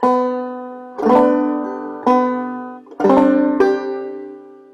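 Banjo played clawhammer style: five plucked notes and brush strums about a second apart, fretted during the brush, the last one left to ring and fade.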